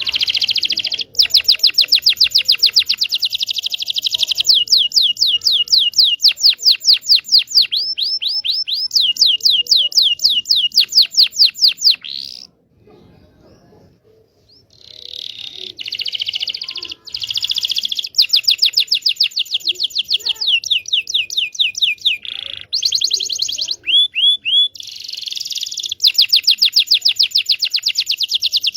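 Domestic canary singing long, fast trills of repeated high chirps, changing from one trill phrase to the next, with a pause of about two seconds partway through. This is a lure song used to get canaries that have stopped singing, or young ones still learning, to sing.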